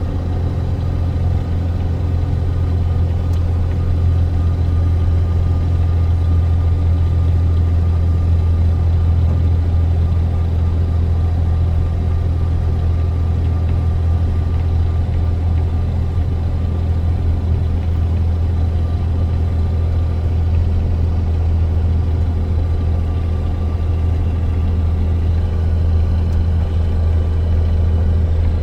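Box truck's engine running with a steady low drone while driving, with road noise under it.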